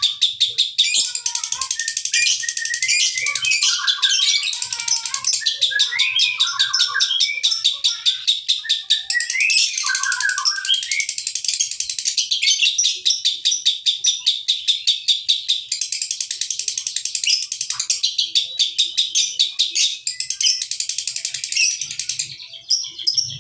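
Caged lovebird giving a long 'ngekek' song: a rapid, unbroken high-pitched chatter that carries on for over twenty seconds and stops near the end.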